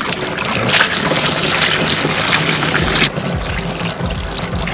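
Engine coolant pouring and splashing out of the radiator, heavy for about three seconds and then easing off to a weaker flow.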